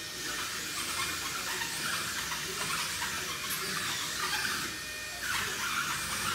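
Wall-climbing remote-control car running: the high whir of its small electric suction fan and drive motors, rising and falling in pitch several times as it is driven.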